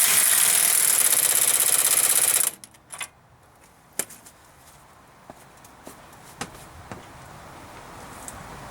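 Impact wrench hammering for about two and a half seconds with a rapid, even rattle, running in bolts on a Dodge Ram 3500's front axle hub. Then a few light metal clicks and knocks.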